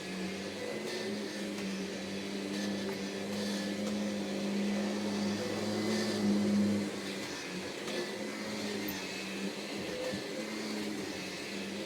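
Vacuum cleaner running with a steady motor hum and faint swishes about once a second; its note changes slightly about seven seconds in.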